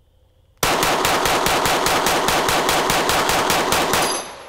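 Springfield Armory XDM Elite 3.8 compact pistol firing a fast string of about twenty shots, roughly six a second. The shots stop about four seconds in, and the echo dies away after the last one.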